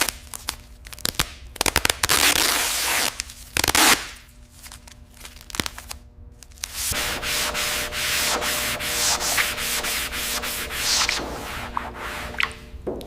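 Sanding or rubbing noise: rough, scratchy strokes with short pauses, becoming a steadier continuous scratching about halfway through.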